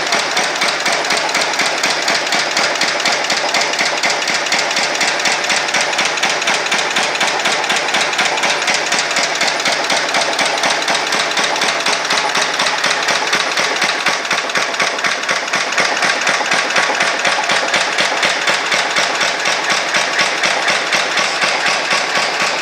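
Blackstone stationary engine running steadily, with an even, rhythmic knocking beat.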